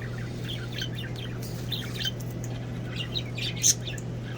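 Birds chirping in quick, scattered short calls, with a steady low hum underneath.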